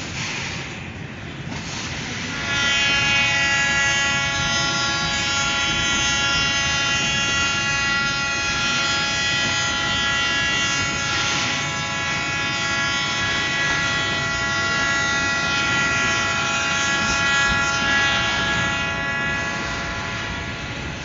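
Loaded freight flatcars rolling past with a steady rumble. From about two and a half seconds in, a steady high-pitched squeal of unchanging pitch sits over the rumble.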